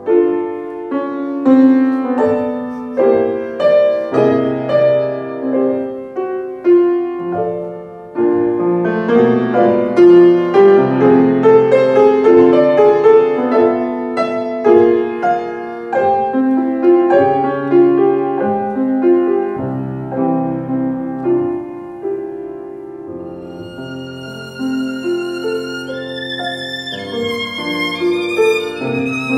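Violin and grand piano playing classical music as a duo. For most of it the piano plays a run of struck notes and chords. In the last few seconds a sustained violin line with vibrato comes to the fore.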